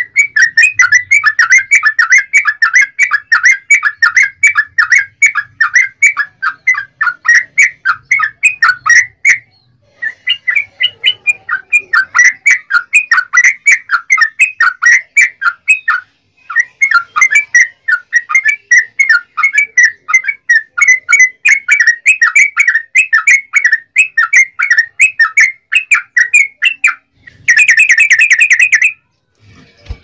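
Yellow-vented bulbul (trucukan) singing its long, rapid 'ropel' song: fast runs of loud chirping notes, several a second, broken by short pauses about 9 and 16 seconds in. Near the end comes a brief, denser and harsher burst.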